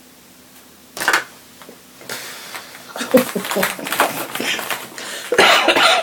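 A brief noise about a second in, then a woman laughing, breaking into a cough into her hand near the end; the laughing sets off her cough.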